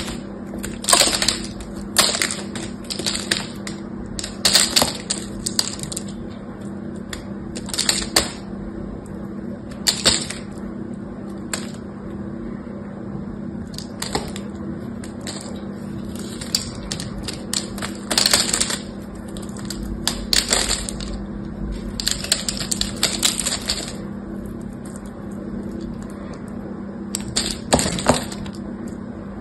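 A bar of soap scored in a crosshatch being cut and pried apart with a small knife, giving crisp, irregular cracks and crunches as chunks and flakes snap off and drop. A steady low hum lies under it.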